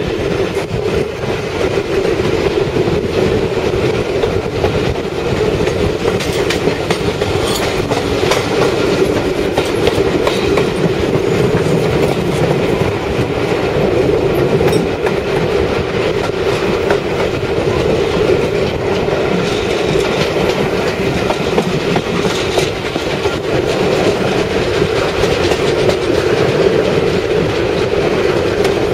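Train running steadily on the rails, its wheels clicking over the rail joints over a constant rumble.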